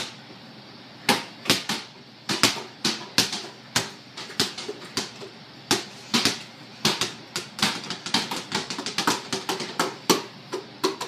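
Basketballs bouncing on a hard floor: repeated dribbling thuds in an uneven rhythm, starting about a second in and coming faster and more often in the second half as two balls are dribbled at once.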